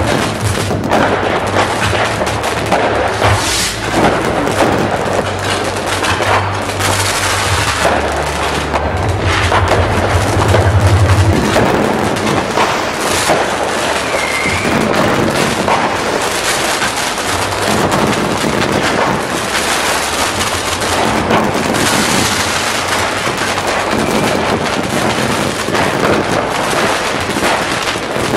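Fireworks display: rapid, overlapping bangs and crackling from aerial shells and rising fountains, continuous with no break. A low steady hum runs underneath for roughly the first eleven seconds, then stops.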